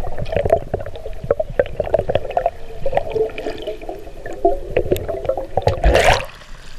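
Underwater sound picked up by the camera: air bubbles gurgling, with many small ticks and clicks over a muffled, wavering hum. A brief louder rush comes near the end.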